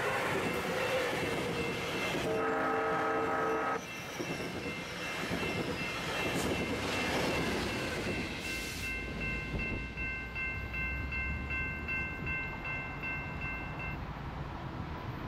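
A Sounder commuter train of bilevel coaches runs past at speed, its wheels and cars rushing by. The horn sounds one chord about two and a half seconds in. After the train clears, a bell rings in an even beat and stops abruptly about a second before the end.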